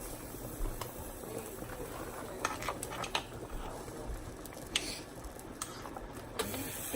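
Seafood boil liquid bubbling in a pot on the stove, with a few light clicks and knocks scattered through.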